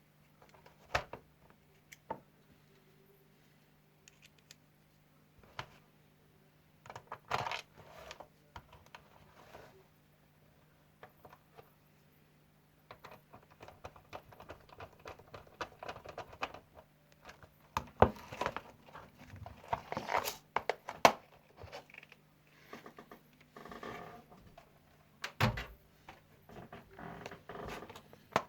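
Scattered clicks, knocks and light clatter of small parts being handled while the LED light fixture is worked on, growing busier about halfway through.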